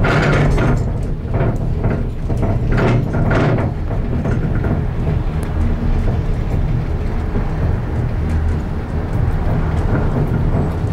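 Gondola running on its cable: a steady low rumble and hum, with several louder rushing surges in the first four seconds.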